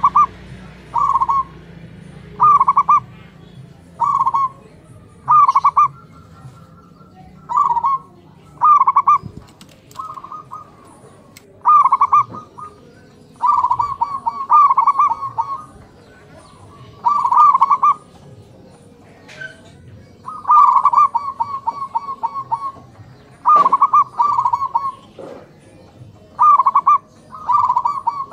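Zebra doves (perkutut) calling back and forth. Their calls come as short bursts of rapid, staccato cooing notes about every second, and some run on into longer trilling phrases.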